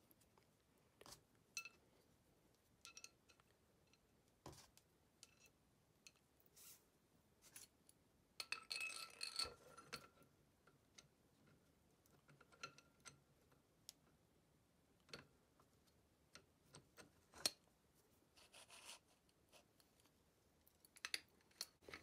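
Faint, sparse metallic clicks and clinks of a Fiat 126 differential's steel gears, housing and axle shaft being handled and turned by hand, with a short ringing metal clatter about nine seconds in.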